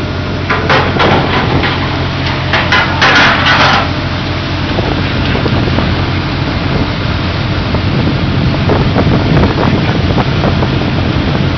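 Steady low hum of a fishing vessel's deck machinery, with a burst of rapid knocking and clatter in the first few seconds and lighter clatter again near the end, as fish are handled into metal bins and hoppers.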